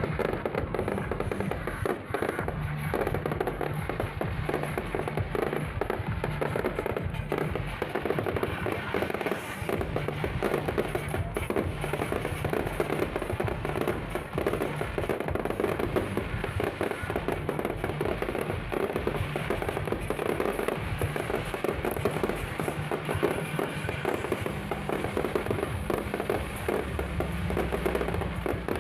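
Fireworks display: a continuous rapid barrage of bangs and crackles, with music playing underneath.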